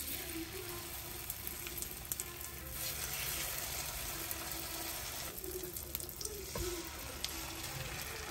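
Egg-coated eggplant frying in hot oil in a nonstick pan: a continuous sizzle that swells a few seconds in, as beaten egg and vegetables go into the pan.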